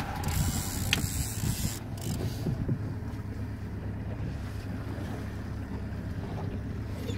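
Wind and water noise aboard a small open fishing boat at sea, over a steady low hum, with irregular knocks and a sharp click about a second in.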